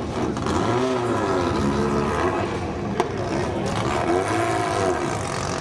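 Race car engines running and revving up and back down twice, over a background din, with a single sharp click about three seconds in.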